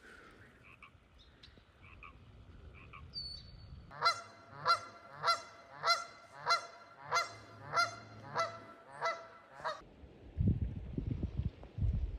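Canada goose honking: about ten loud honks in a steady series, roughly one every 0.6 seconds.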